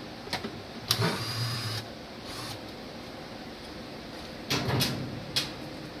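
Cordless drill-driver backing out Phillips screws on a direct-drive washing machine's motor, running in two short bursts: one of nearly a second about a second in, and a shorter one at about four and a half seconds, with a few sharp clicks.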